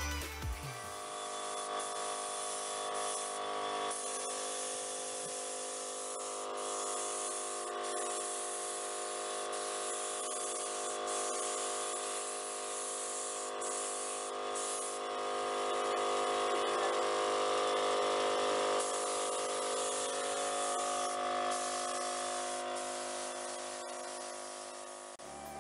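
Gravity-feed spray gun hissing steadily as it sprays a finish onto wooden boxes, with short breaks in the hiss. A steady whine of machinery runs underneath.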